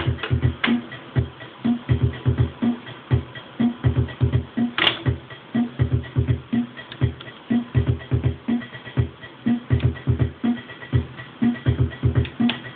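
Looping drum-machine pattern from a circuit-bent Yamaha PS-200 portable keyboard's built-in drum sounds, fired by an external step sequencer: clusters of quick low thumps and a higher drum hit, repeating about every two seconds. A sharp, louder hit stands out about five seconds in.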